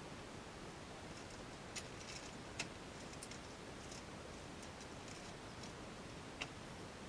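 A few small sharp clicks, the loudest about two and a half seconds in, with faint light ticks and rustling over a steady hiss.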